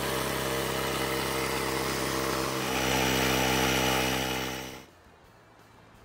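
Ryobi cordless tire inflator's compressor running steadily as it tops off a UTV tire to about 11 PSI. It grows louder and its pitch shifts about two and a half seconds in, then it shuts off suddenly near five seconds.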